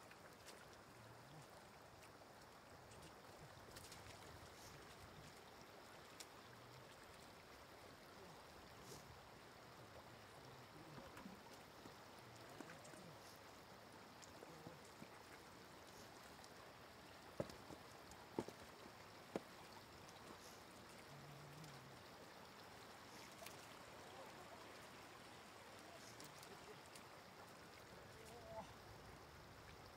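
Faint trickle of shallow floodwater running over a muddy track, close to near silence. Three sharp ticks about a second apart come a little past halfway.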